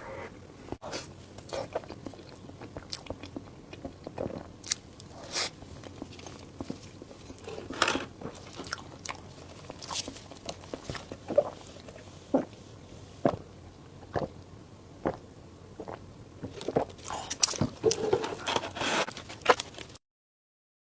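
Close-up eating sounds: a person biting and chewing food, with irregular sharp clicks and short crackles. The sound cuts out completely for about a second near the end.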